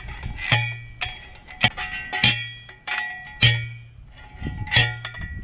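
Metal fence panels clanging and ringing as they are handled and pushed, about five sharp metallic strikes at uneven intervals, each with a short ringing tail.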